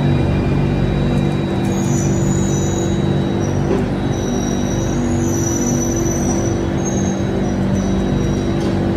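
Singapore MRT train heard from inside the carriage, running slowly alongside a platform: a steady low electric hum, with a thin high whine coming and going in the middle.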